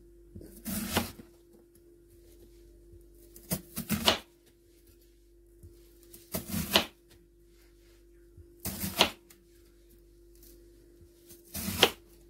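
Salt and pepper being shaken onto food in short rattling bursts of a few shakes, about five times, two to three seconds apart. A steady low hum runs underneath.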